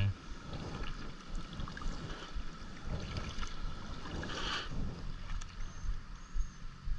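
Water lapping and splashing around a plastic sit-on-top kayak as it is paddled at sea, with wind rumbling on the action camera's microphone. There is one louder splash about four and a half seconds in.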